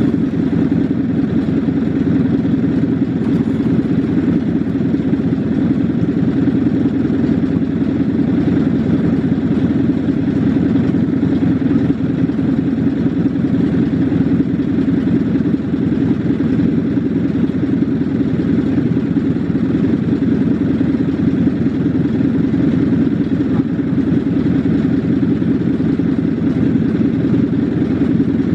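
Small lawn mower engine running steadily at a constant speed after a cold start.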